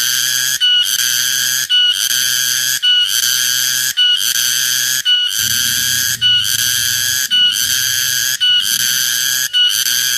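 Cicada calling loudly: a shrill, high buzzing song repeated in phrases about a second long. Each phrase is broken off by a brief gap and opens with a short clear note.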